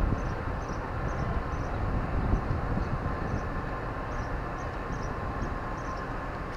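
DR1A diesel multiple unit's engine running steadily, heard through an open carriage window: a low rumble with a constant hum. Faint high chirps repeat about twice a second over it.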